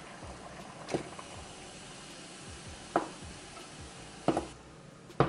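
Frozen cauliflower florets dropped by hand into a saucepan of boiling water: four sharp plops, about one every second or two, over the steady hiss of the boiling water.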